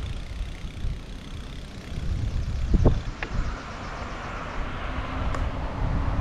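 Wind buffeting the microphone while riding a bicycle, a steady low rumble with a short thump about three seconds in and a steady hiss in the second half.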